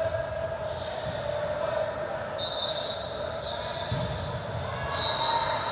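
Indoor volleyball gym ambience: voices in the hall, scattered ball thuds and brief high shoe squeaks on the court floor over a steady hum.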